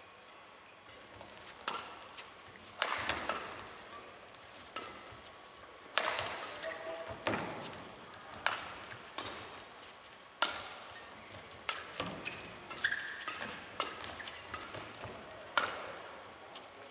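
Badminton rackets striking a shuttlecock back and forth in a doubles rally: sharp hits about every second or so, starting a couple of seconds in.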